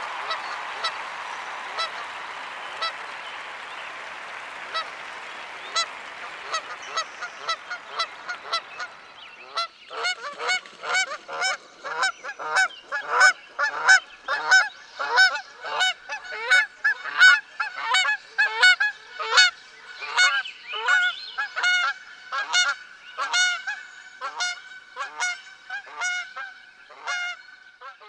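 Applause dying away, then from about ten seconds in a long run of goose honks, about two a second and overlapping like a flock calling.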